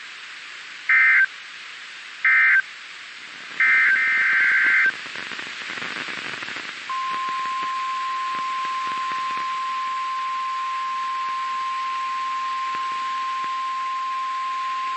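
Three loud bursts of Emergency Alert System SAME digital data tones, a harsh warbling screech, the last burst longer, then radio hiss, then the NOAA Weather Radio 1050 Hz warning alarm tone, one steady high beep held to the end. The tone signals that a new warning broadcast is about to begin.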